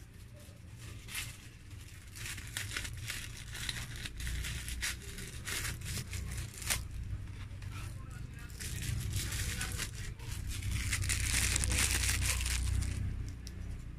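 Thin plastic packaging crinkling and crackling in the hands, with a longer, louder stretch of tearing and rustling near the end, as it is torn open.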